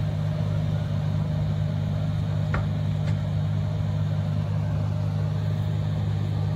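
Large tracked excavator's diesel engine running steadily, a constant low hum.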